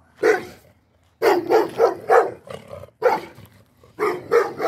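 A dog barking repeatedly, in short sharp barks that come in quick volleys of three or four.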